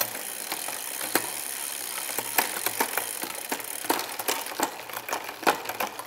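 Bicycle chain running through the rear derailleur and over the cassette as the cranks are turned in the stand, a steady whir with scattered clicks as the gears are shifted through to check the indexing.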